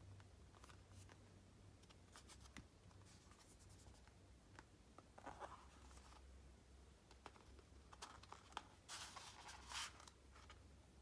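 Hands handling album packaging: scattered faint clicks and taps, with a brief rustle about five seconds in and a louder rustle near the end.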